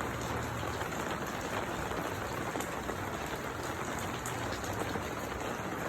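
Steady rain falling: a dense, even hiss with a few sharp drop ticks through it.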